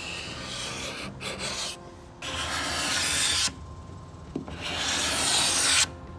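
Carbide hand scraper dragged across a wooden buffet top, rasping as it peels off the old finish. Several strokes, the two longest in the second half, each growing louder and then stopping suddenly.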